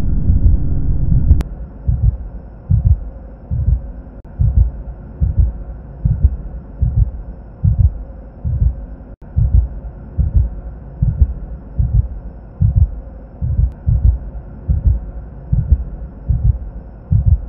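Heartbeat sound effect: steady, regularly repeating low double thumps, lub-dub, over a faint steady hum. For the first second and a half a loud low rumble plays over it, then cuts off abruptly.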